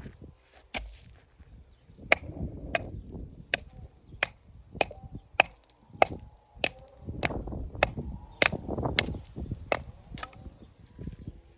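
Steel walling hammer striking stone, dressing or trimming it with about fifteen sharp, ringing cracks at a steady pace of roughly one every two-thirds of a second, with low rough noise between the blows.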